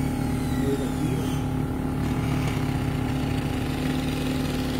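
A steady engine hum, with a small motorbike approaching and drawing close near the end.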